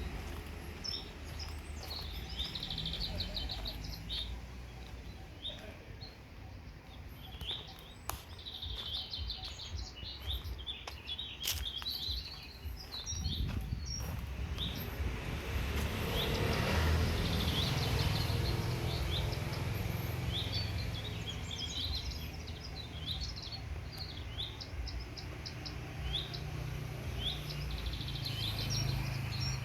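Many small birds chirping and calling all through, in quick short notes. Under them is a low outdoor rumble that swells about halfway through and stays louder afterwards.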